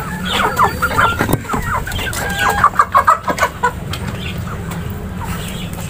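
Chickens clucking, a quick run of short calls over the first three to four seconds, then quieter.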